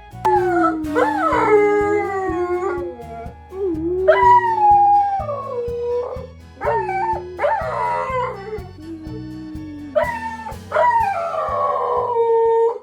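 A dog howling: a series of long, wavering calls that glide up and down in pitch, some ending on a falling note, over background music.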